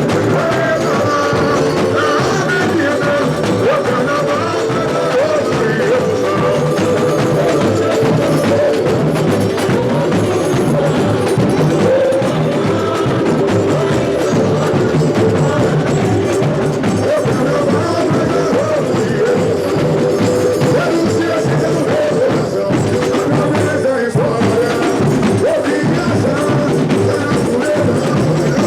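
Samba school bateria playing a samba at full strength: a dense, steady mass of drums and percussion with a sung melody carried over it.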